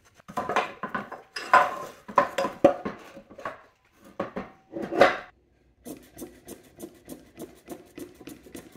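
Metal parts of a Mercedes G W463 transfer case clanking and knocking as the cast casing and its parts are handled on a steel workbench. About six seconds in, this gives way to a quicker, even run of light clicks, about five a second.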